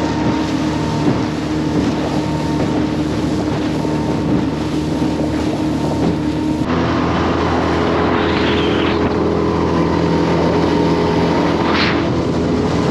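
Outboard motor of a small aluminium boat running steadily under way, with wind buffeting the microphone. The engine note changes abruptly about two-thirds through.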